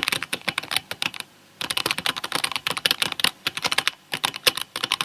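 Rapid typing on a computer keyboard, with a short pause a little over a second in.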